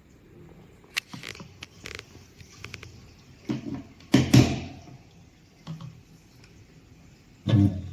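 Scattered clicks, taps and knocks of a macerator pump's plastic parts being handled during the micro switch repair, loudest about four seconds in.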